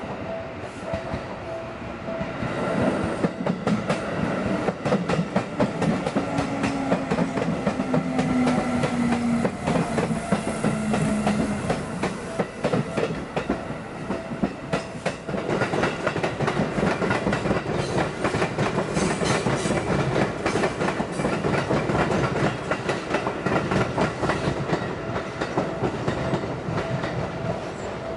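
Seibu electric commuter trains passing over a level crossing one after the other, the wheels clacking rapidly over the rail joints, with a low motor tone falling in pitch as the first train goes by. The crossing's warning bell rings steadily at the start and again near the end.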